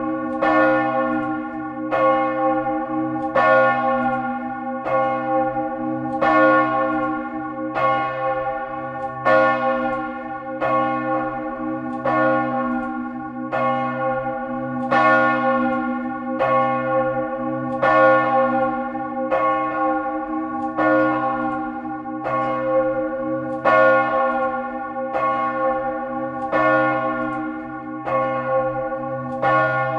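The great bell of a church ringing in full swing, swung to a high angle, its clapper striking about every second and a half. Each stroke's hum carries on under the next.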